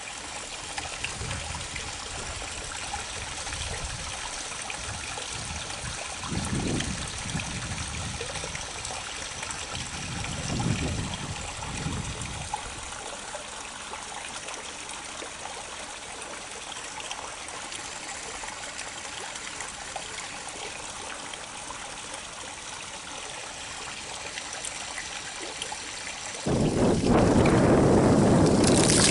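Water from a small inflowing channel trickling and running steadily into the river. About two and a half seconds before the end, a sudden much louder rushing noise cuts in and covers it.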